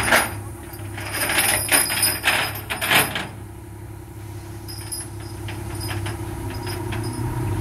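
An engine idling steadily with a low hum, with a quick run of metal clanks and rattles between about one and three seconds in, from work around the wheel loader on the truck bed.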